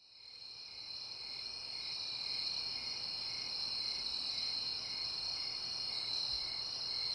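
A steady chorus of crickets fading in over the first couple of seconds: a continuous high trill with a lower chirp pulsing evenly beneath it.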